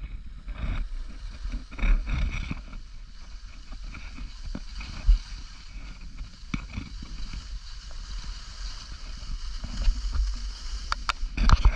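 Steady rushing noise with a low rumble, like wind across the microphone, broken by scattered clicks and knocks.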